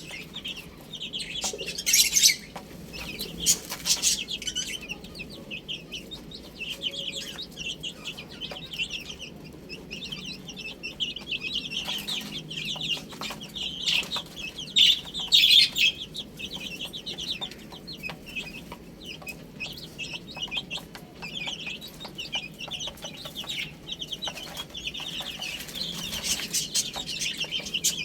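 Many domestic chicks peeping continuously in short, high-pitched calls, with a few sharp clicks about two seconds in, around four seconds and near the middle.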